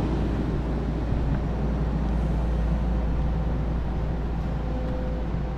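Volvo 22-tonne excavator's diesel engine running steadily under working load with a low rumble, a faint steady whine riding over it.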